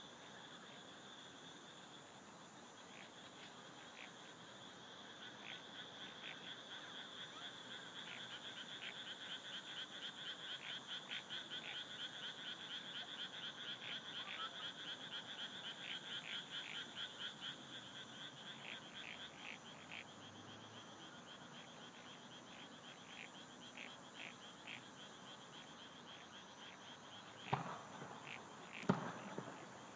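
A chorus of frogs croaking in rapid pulses, swelling a few seconds in and thinning out after about twenty seconds, over a steady high trill of night insects. Near the end, two sharp bangs of fireworks bursting.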